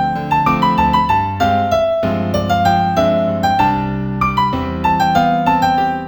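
Background piano music: a gentle melody of quickly struck notes over held bass notes.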